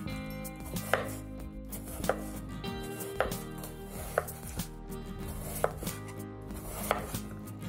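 Chef's knife chopping cucumber on a wooden cutting board: a sharp knock of the blade striking the board about once a second.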